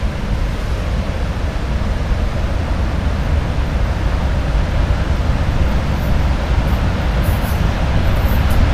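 VL80S electric freight locomotive approaching with a train of tank cars: a steady low rumble of wheels on rail that grows gradually louder.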